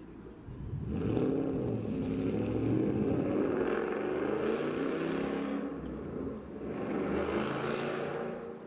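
Ford Mustang's exhaust as the engine is revved. It comes up about a second in and holds, with two stronger rev swells, one about halfway through and one near the end.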